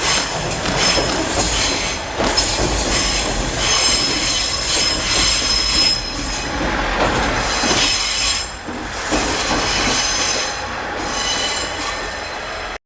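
A Tadami Line KiHa diesel railcar passing close by, its steel wheels squealing high and steadily against the rails with repeated clacks over the rail joints. The sound cuts off suddenly near the end.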